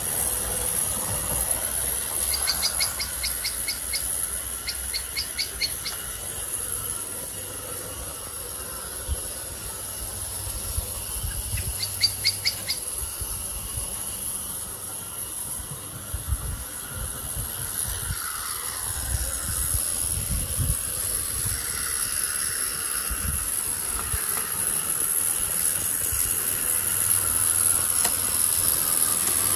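Regner gas-fired live-steam tram locomotive running on garden track: the steady hiss of its burner, which has a secondary air hole in its collar, and the rumble of its wheels on the rails. It fades as the loco moves away and grows louder again over the last several seconds. A bird trills briefly three times in the first half.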